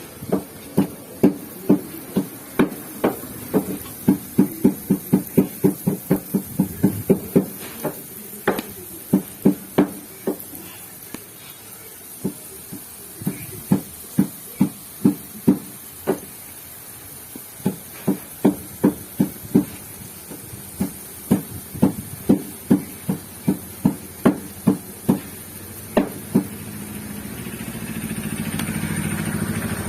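A long run of sharp, rhythmic knocks, about three a second, breaking off briefly now and then. Near the end a vehicle engine grows louder.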